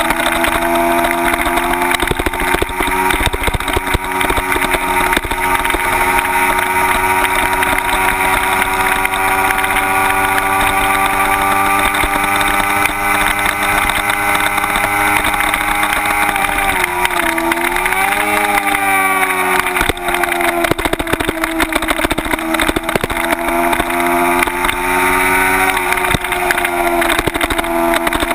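Kawasaki Ninja 250's parallel-twin engine running hard at high revs under a track-speed ride, with wind noise on the microphone. The engine note climbs slowly, dips and climbs again about two-thirds of the way in, then holds steady.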